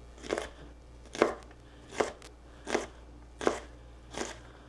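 Chef's knife chopping jalapeño strips on a plastic cutting board: six evenly spaced chops, a little more than one a second.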